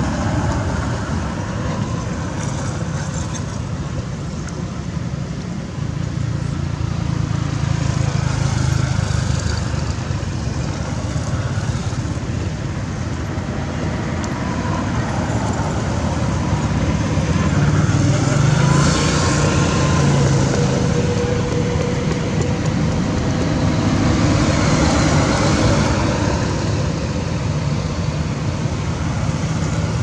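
Steady low rumble of road traffic and engines, swelling louder a couple of times, with a brief engine whine about two-thirds of the way through.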